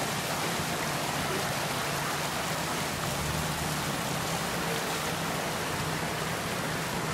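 Fast-flowing muddy floodwater rushing and churning down a street in a steady, unbroken rush.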